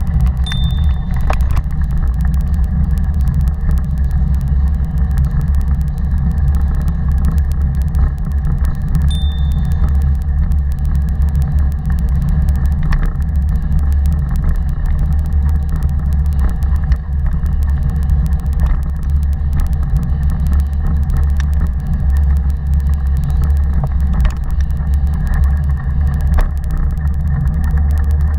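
Steady low rumble of a Taga 2.0 cargo bike rolling along a path, picked up by a camera mounted on the bike's front, with wind on the microphone. Two brief high pings sound near the start and again about nine seconds in.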